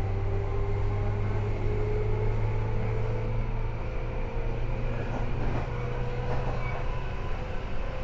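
Tobu 10030 series electric train running, heard from inside the car: a steady low hum under a motor and gear whine that rises slowly in pitch as the train gains speed.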